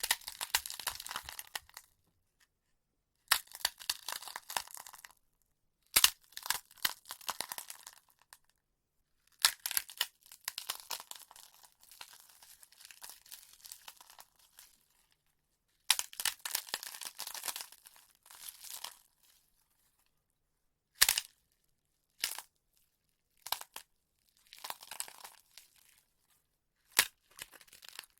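Bone-cracking sound effect: about ten separate bouts of sharp cracks trailing into crunchy crackling, with silent gaps between them, coming quicker near the end.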